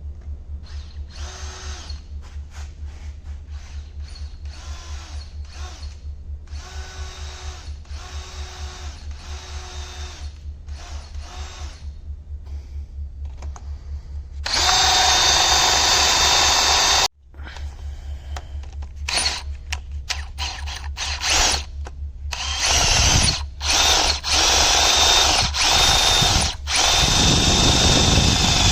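Power drill working on a broken bolt snapped in the motorcycle's rear subframe mount, to drill it out and back it out with a bit. It runs in short bursts at first, then in longer, louder runs, stopping sharply about 17 seconds in and picking up again in bursts toward the end.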